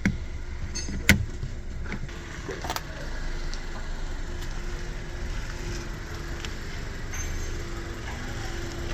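Light clicks and clinks of metal parts being handled in a car, with one sharp click about a second in, over a faint steady hum.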